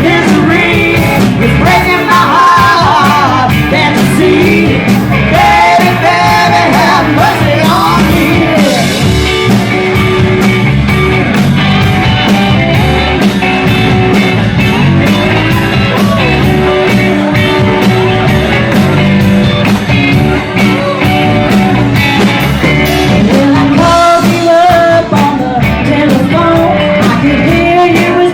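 Rock-and-roll music with a singing voice over a steady beat.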